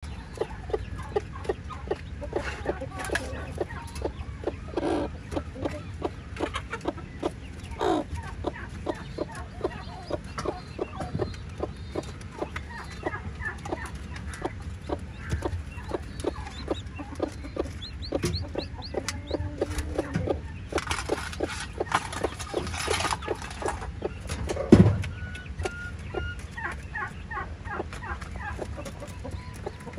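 Broody hen clucking steadily in short, low clucks, about two a second, while her newly hatched chicks peep in short high chirps, most clearly near the end. There is one loud thump about 25 seconds in.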